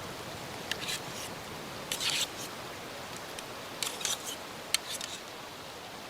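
Scattered sharp snaps and clicks at irregular intervals over a steady hiss.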